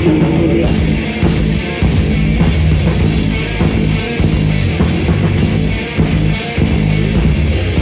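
Heavy metal band playing live: loud electric guitars and bass over a drum kit, with a steady, pounding rhythm.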